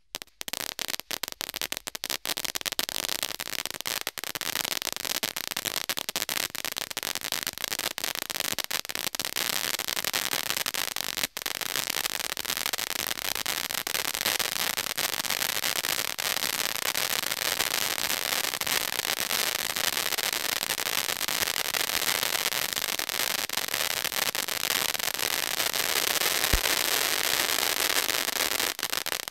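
Red Wire 'Cone of Crackling' firework fountain burning: a dense, continuous crackle of many tiny pops. It starts sparse and fills in within the first couple of seconds, then stops abruptly near the end.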